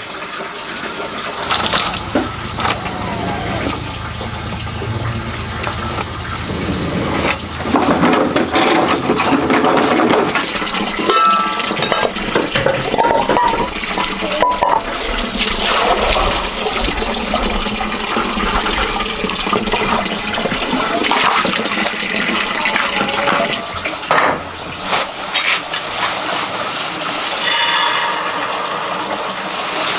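Water running and splashing.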